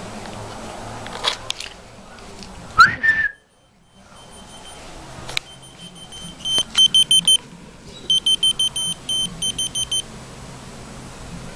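A short rising whistle, then a whistle-activated key-finder keychain answering with two runs of rapid, high-pitched electronic beeps.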